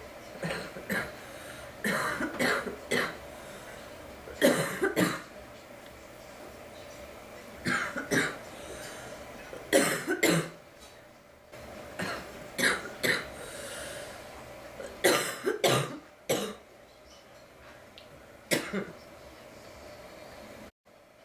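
A girl coughing in repeated short bouts of one to three coughs, with pauses of a second to a few seconds between bouts.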